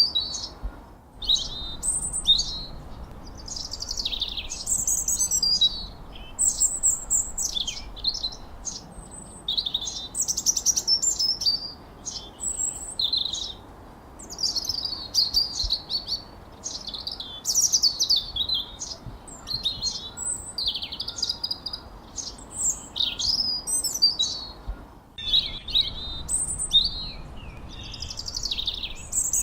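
Songbirds chirping and whistling in quick, high, overlapping phrases that glide up and down in pitch, with brief pauses about a second in and near the end.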